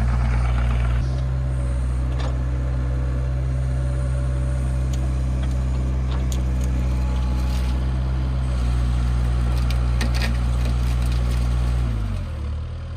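Kubota mini excavator's diesel engine running steadily under hydraulic load, with a few sharp knocks from the working machine. Near the end the engine note sags in pitch and then picks back up.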